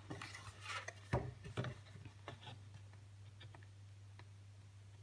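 Faint clicks and light scratching of a pointed tool picking at the backing strip of double-sided tape on black cardstock, with the card being handled. The ticks are most frequent in the first two seconds, then thin out.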